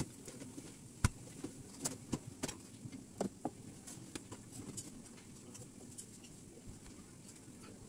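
Scattered light clicks and taps of hands working sushi on a plastic cutting board, with one sharper knock about a second in and a few more over the next two and a half seconds, over a low steady kitchen background.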